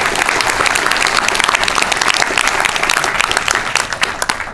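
Audience applauding steadily, dense clapping that dies away near the end.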